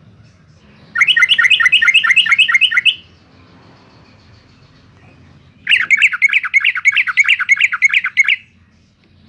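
Yellow-vented bulbul singing two loud phrases of rapid, bubbling repeated notes, each about two to three seconds long, the second starting about three seconds after the first ends.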